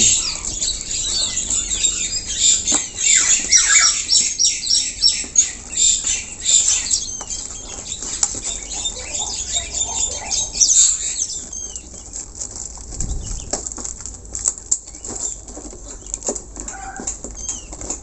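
Scissors cutting and packing tape tearing as a taped cardboard parcel is opened, with scratchy rustling and scraping of the cardboard. It is busiest for the first ten seconds or so, then gives way to lighter handling and scattered clicks as the flaps are pulled open.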